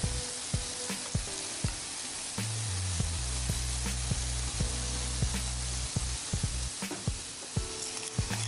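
Sliced shiitake and maitake mushrooms sizzling in butter in a frying pan, with many small scattered pops, over background music with low sustained notes.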